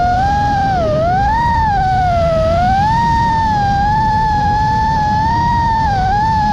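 Motors of a 5-inch FPV quadcopter whining, the pitch rising and falling with each throttle change, over a low rushing noise.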